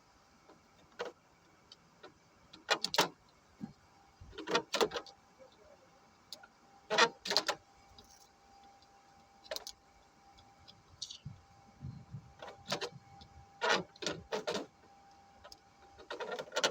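Irregular metallic clinks and knocks, some in quick pairs or small clusters, from hand tools and parts being handled while the car's pump is changed.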